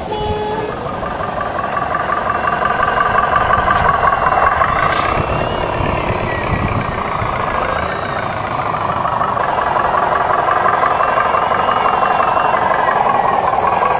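Truck engine sound running continuously, its pitch rising and falling as it revs, with the strongest rise about four to six seconds in. A short beep sounds at the very start.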